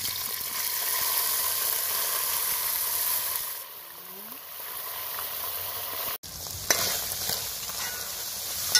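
Flaked salt mackerel sizzling in hot oil with fried garlic as it is tipped into the pot. The sizzle eases after a few seconds, and a metal spoon stirs and scrapes through the fish near the end.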